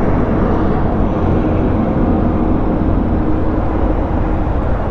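Motorcycle running steadily on the road, a dense low rumble mixed with road noise as picked up by the rider's own microphone, with a faint steady hum over it that fades out near the end.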